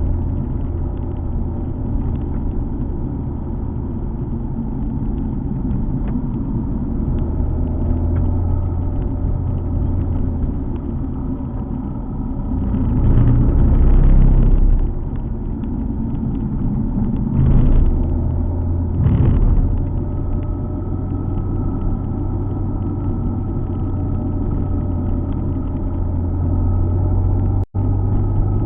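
Alfa Romeo 147 GTA's 3.2-litre V6 running steadily under way, with tyre and road noise. It swells louder for a couple of seconds about halfway through, and twice briefly soon after. The sound cuts out for an instant near the end.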